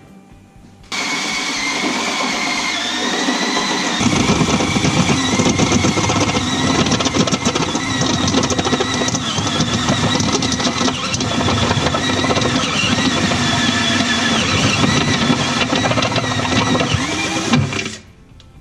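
Power drill running a step bit through a truck's side panel, cutting a 3/4-inch hole. It starts suddenly about a second in, gets heavier from about four seconds in, and stops abruptly near the end, with a wavering high whine from the bit cutting.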